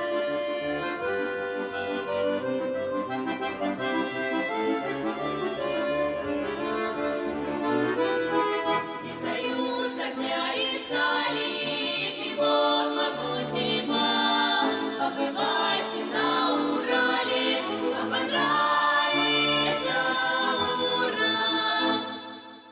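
Traditional folk music led by an accordion, which fades out near the end.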